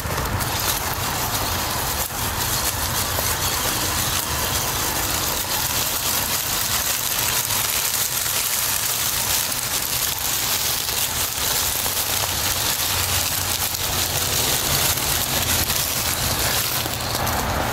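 A Traxxas TRX-4 Sport RC crawler truck driving over dry fallen leaves, its tyres crunching and rustling through them in a steady crackle.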